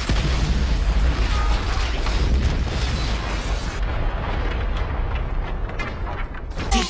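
A huge explosion blowing apart a stone fortress wall: a long, rumbling blast with rubble crashing down that carries on for several seconds, losing its top end about halfway and easing off near the end.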